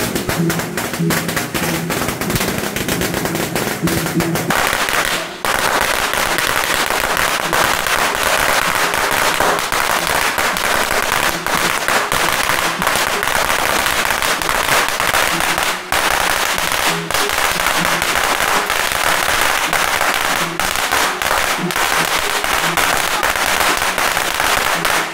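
A long string of firecrackers going off in a rapid, continuous crackle. Music with held notes plays under it for the first few seconds, then stops, leaving only the crackle.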